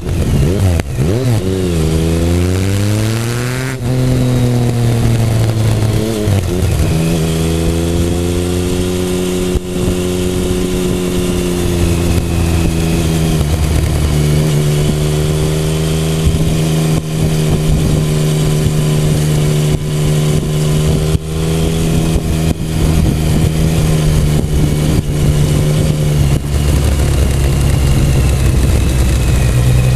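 Triumph Speed Triple 1050's inline three-cylinder engine and exhaust under way: the revs climb and drop sharply several times in the first seven seconds, then settle to a steady cruise with only slight rises and dips.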